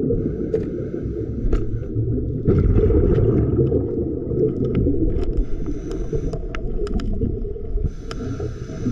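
Muffled, low rush of moving water, with a scatter of small sharp clicks.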